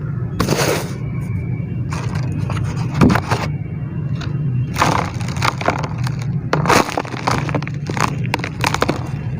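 Dry chunks of pure dirt crumbling and breaking apart, in irregular crunches and crackles: a sharp crunch about three seconds in and clusters of cracks around five and seven seconds. A steady low hum runs underneath.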